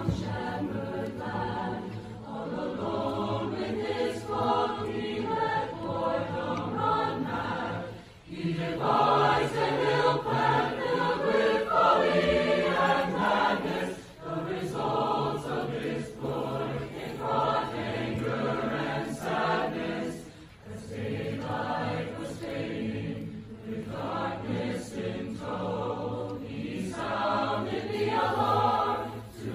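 Choir singing in long phrases, with short breaks between phrases about 8, 14 and 20 seconds in.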